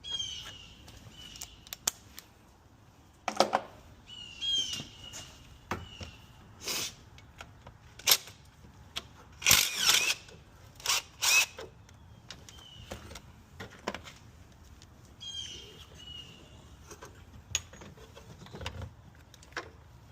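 Hand tools and metal parts clinking and clanking in a string of sharp knocks, loudest in a cluster about halfway through, while a bird chirps repeatedly in short calls.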